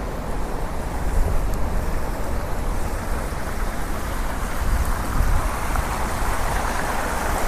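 Fountain jets splashing into a round basin, growing louder toward the end as they come closer, over a steady low rumble of street traffic.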